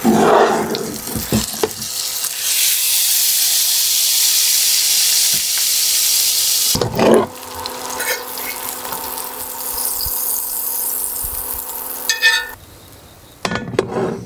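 Steak and vegetables sizzling in butter in a skillet on a portable induction hot plate, with a few knocks and scrapes of a utensil in the pan. The sizzling cuts off sharply near the end, followed by a couple more knocks.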